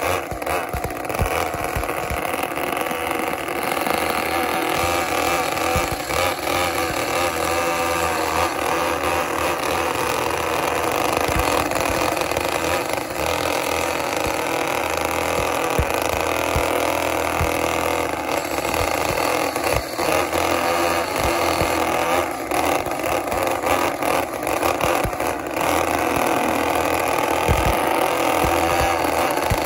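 Six small two-stroke weed-trimmer engines of an RC pulling tractor running together steadily, a dense buzzing mix of several engine notes.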